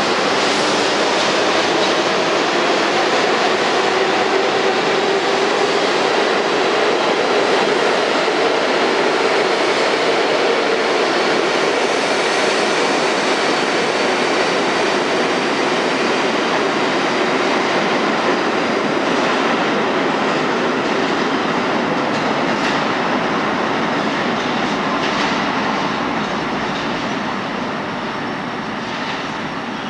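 R32 subway train pulling out of the station into the tunnel: a steady rumble of wheels and motors, with a few clacks from the wheels later on, fading over the last few seconds as the train goes.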